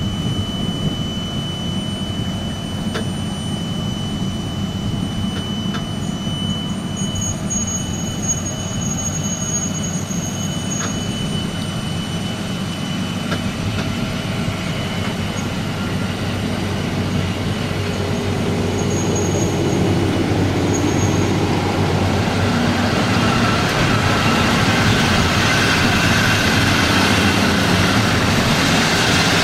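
A train running on the railway line, with a steady low hum and a few brief high squeals, its rumble building and growing louder about two-thirds of the way through as it comes closer.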